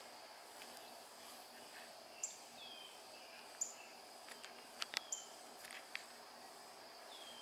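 Quiet garden ambience: small birds giving short, high chirps every second or so over a faint steady high hiss, with a few sharp clicks about five seconds in.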